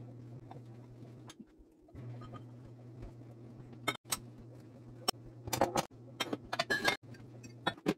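Glassware clinking as glass dishes are towel-dried and set into a wire dish rack: a few clinks about halfway through, then a rapid cluster of clinks near the end, over a steady low hum.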